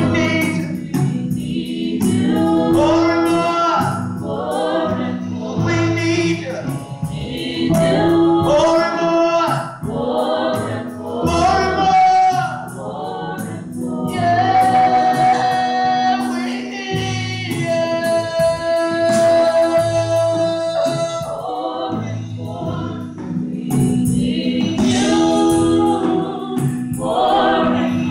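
Gospel singing by several voices, women and a man, into microphones, over held keyboard chords.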